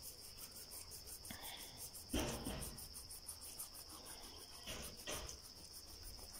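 A cricket chirping in a fast, even trill. Two soft knocks, about two seconds in and again about five seconds in, come from a knife cutting through a fish on cardboard.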